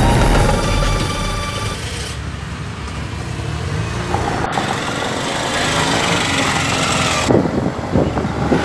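Auto rickshaw engine running, with background music fading out in the first couple of seconds.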